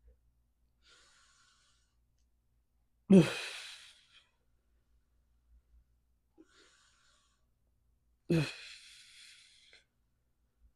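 A man breathing hard through a set of chest flies: two loud, sudden exhales with a falling groan of voice, about five seconds apart, with quieter breaths drawn in between.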